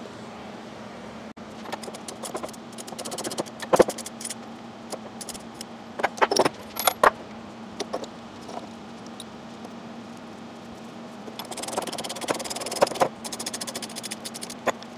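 Steel puller and pulley clinking and knocking as the puller is worked to draw a pulley off a small engine's crankshaft. There are scattered metal clinks, the sharpest a few seconds in, and a quick run of rapid clicks near the end.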